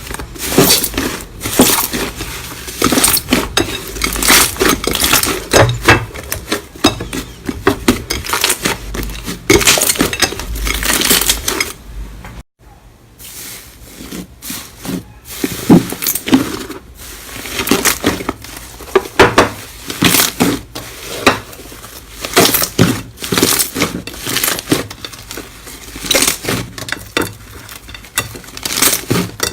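Slime being squeezed, poked and pressed by hand, making a dense run of crunchy crackles and sharp clicks, broken off by a moment's silence about twelve seconds in.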